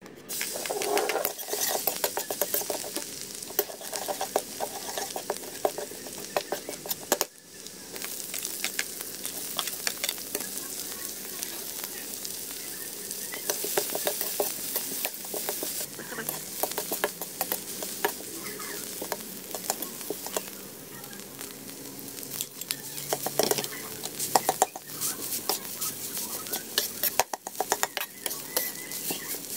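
Oil sizzling in a wok while diced vegetables and then cooked rice are stir-fried, with a spatula scraping and clicking against the pan throughout.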